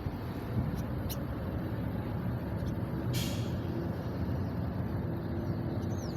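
A ship's engine running with a steady low rumble as the vessel comes in to dock, with a short hiss about three seconds in.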